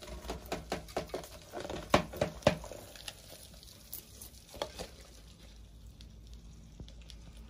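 Feeder crickets being tipped and shaken out of a plastic cup onto a rock dish: a quick run of light taps and rustles for the first few seconds, then only a few scattered taps.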